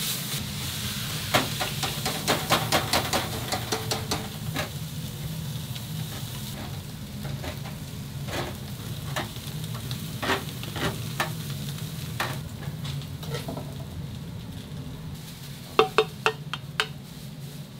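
Pork intestines (gopchang) sizzling as they cook, with utensils clicking and tapping against the cooking surface now and then and a quick run of sharp clicks near the end, over a steady low hum.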